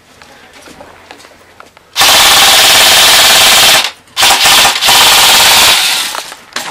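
Airsoft electric rifle firing full-auto: two long rapid bursts about two seconds in, separated by a brief pause, very loud close to the microphone.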